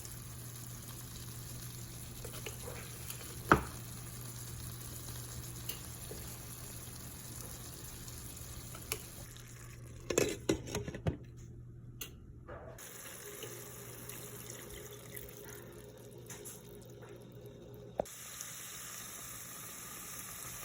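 Kitchen tap running steadily into a sink, with a sharp knock about three and a half seconds in and a short clatter of knocks about ten seconds in.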